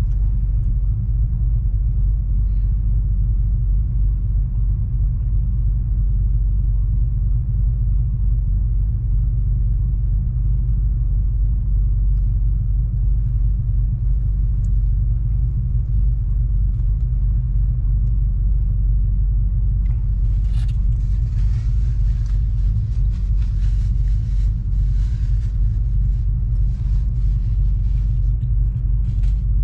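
Truck idling, heard inside the cab as a steady low rumble. From about twenty seconds in, faint crackling joins it as the food is handled and eaten.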